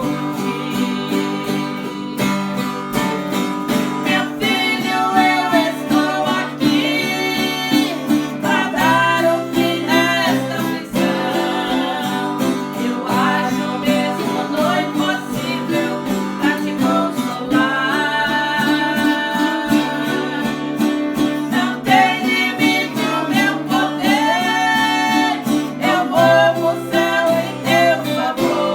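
Acoustic guitar strummed steadily while voices sing a Christian praise song.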